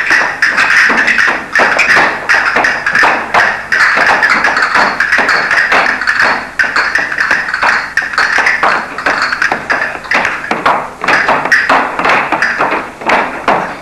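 Castanets clicking in fast, dense rattles together with shoe taps on a wooden floor, over music.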